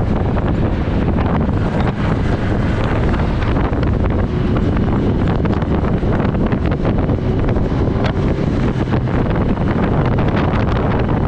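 Heavy, steady wind buffeting on the microphone while riding a Kawasaki Ninja ZX-10R sport bike at highway speed, with the bike's running noise mixed in underneath.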